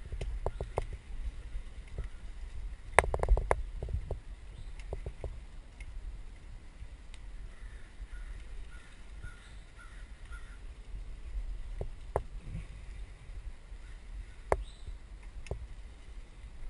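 Mountain bike rolling along a dirt singletrack: a low rumble of tyres and wind on a helmet-mounted camera, with sharp clatters and clicks from the bike going over bumps, thickest about three seconds in and a few single knocks later. A faint run of short pitched calls comes through near the middle.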